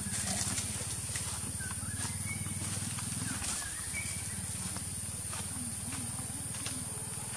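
Outdoor ambience: a steady high hiss and a low steady rumble, with scattered soft clicks and a few faint short chirps.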